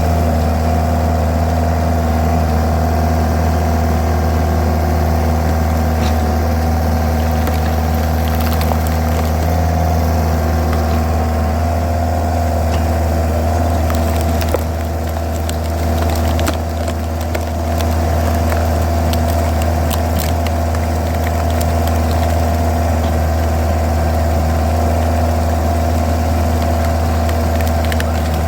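Mini skid steer's engine running steadily, with a steady hydraulic whine, as the rotating threaded cone splitter drives into a large log. Sharp cracks and pops of the wood splitting come scattered through the middle.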